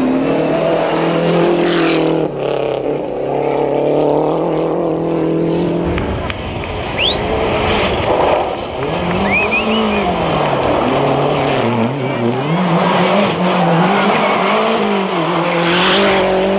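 Group A Lancia Delta rally car engines, turbocharged four-cylinders, driven hard on gravel. The engine note holds fairly steady at first, then after a cut about six seconds in it rises and falls again and again as the revs climb and drop through gear changes. Gravel and tyre noise run underneath throughout.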